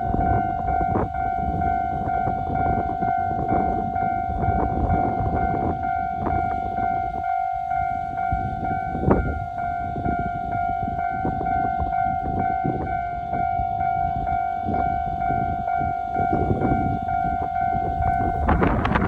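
Japanese level-crossing warning bell (踏切, "kan-kan") ringing steadily as a JR Kyushu DENCHA battery-electric train runs past, its wheels rumbling and clacking now and then over the rail joints. A louder rush of noise comes near the end.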